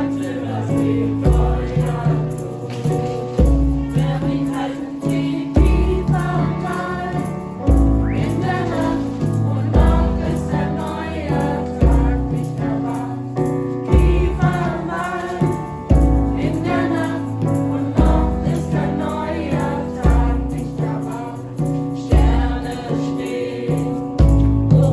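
A choir singing a song over a steady beat with bass accompaniment.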